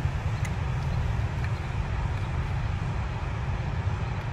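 Steady low rumble of a passing train.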